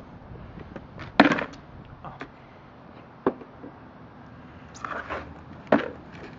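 A few knocks and clicks of things being handled and set down on a tabletop, the loudest about a second in and another near the end.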